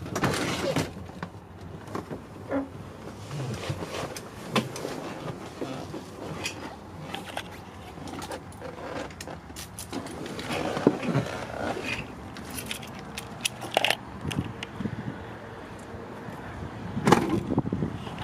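Irregular knocks, clicks and rustling as the cab door of a Ford bus is opened and someone climbs out and walks to the front; the sharpest knock comes near the end.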